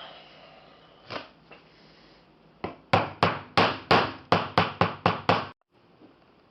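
A fast run of about ten sharp hammer blows, roughly three a second, after a couple of lighter knocks; the blows cut off abruptly.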